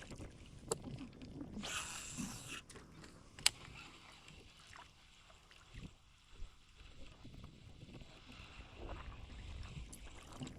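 Quiet sounds of a kayak on the water: faint water noise with a few small clicks and knocks, and a brief hiss about two seconds in.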